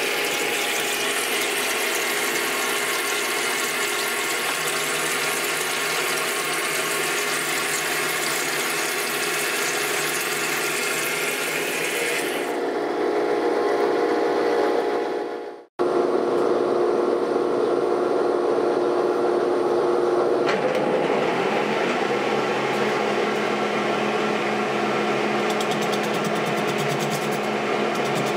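Old geared-head metal lathe running, its headstock gears turning in an oil bath with a steady whine of several tones. The sound cuts out for a moment about halfway through, then comes back with a different set of tones, as at another gear speed, and shifts again a few seconds later.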